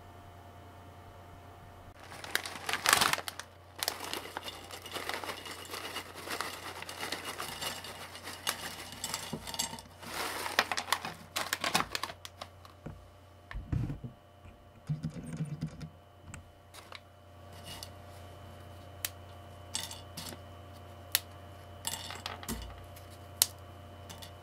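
Plastic snack bag crinkling for about ten seconds as it is handled and opened, followed by a few low bumps. After that come scattered light clicks as the crisp shrimp-cracker sticks are moved about on a plate.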